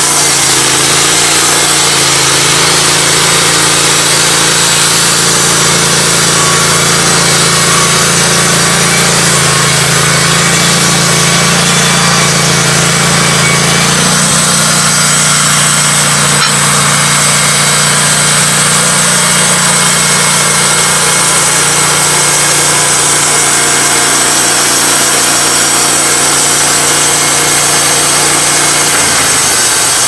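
Wood-Mizer LT15 Go portable bandsaw mill running steadily at high throttle, its band blade sawing a hemlock log into siding boards. The engine note changes suddenly about halfway through and again shortly before the end.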